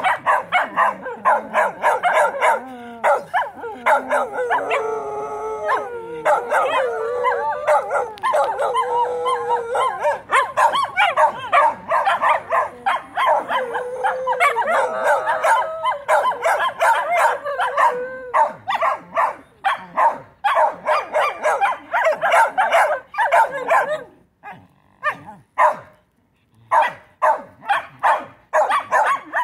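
Several Shetland sheepdogs barking rapidly and howling together, with long wavering howls rising out of the barking a few seconds in and again around the middle. Near the end the chorus breaks up into a few scattered barks.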